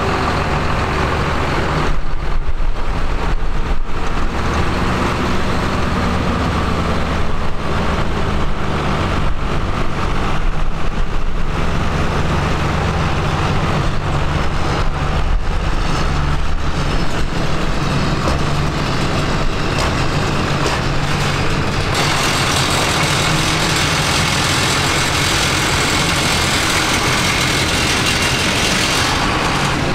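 Tractor engines running with a steady low engine note. A hissing noise joins in about two-thirds of the way through and stops shortly before the end.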